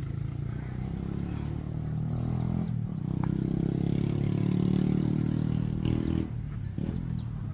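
A motor engine running steadily nearby, growing louder about three seconds in and dropping away about six seconds in. Birds chirp over it with short rising calls.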